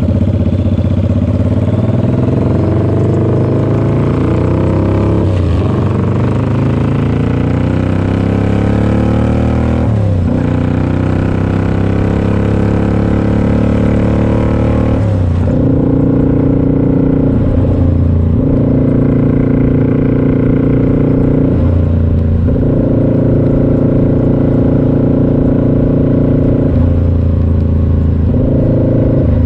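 Suzuki Intruder V-twin cruiser with a Vance & Hines exhaust accelerating up through the gears. The engine note rises and drops back at each upshift, about five, ten and fifteen seconds in. It then settles into a steady cruise with a few brief throttle roll-offs.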